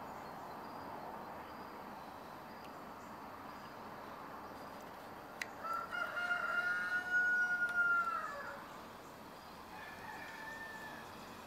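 A rooster crowing once: a single drawn-out call lasting about two and a half seconds, starting about halfway through, over a steady low hiss.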